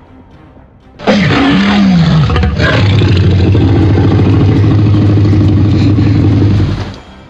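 Dubbed Tyrannosaurus rex roar sound effect, loud. It starts about a second in with swooping rises and falls in pitch, then runs on as a long, steady, low growling roar that cuts off shortly before the end.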